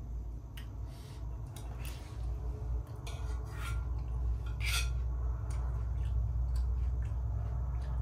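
A spoon clicking and scraping against a pot or bowl a few times during a meal, over a steady low rumble of wind outside the building that grows a little stronger about halfway through.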